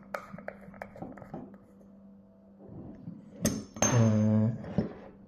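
Small metal clicks and clinks of a hydraulic fitting's parts being handled, then a sharp click about three and a half seconds in, followed by a short, loud humming tone.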